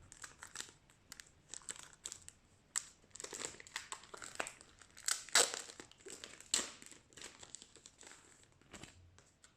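Packaging crinkling and rustling in irregular bursts as a pack of postcards is unwrapped and handled, loudest about midway through.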